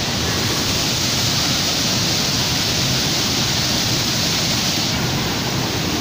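Waterfall: falling water making a loud, steady, unbroken rush.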